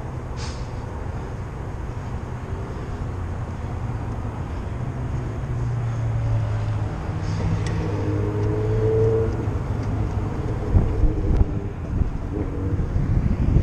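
A motor vehicle's engine drones steadily, growing louder toward the middle, with a few sharp knocks near the end.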